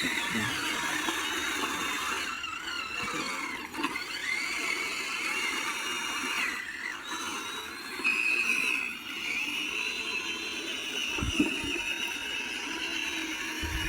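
Small electric motors of radio-controlled model construction machines whining, their pitch rising and falling as they work, with a few low knocks near the end.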